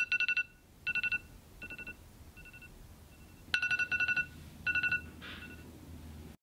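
Smartphone wake-up alarm beeping in groups of rapid pulses, with quieter and louder groups in turn; it stops about five seconds in as the alarm is dismissed.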